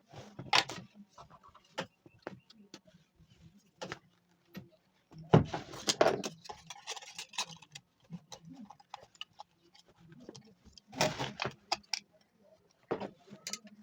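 Irregular clicks, knocks and short clattering from small hard objects being handled, loudest about five to six seconds in and again around eleven seconds, over a faint steady low hum.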